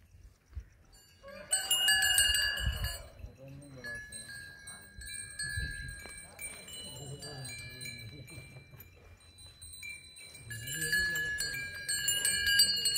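Bells on a bull's neck ringing unevenly as the animal is untied and walked. The ringing starts about a second and a half in, thins out, and grows louder near the end.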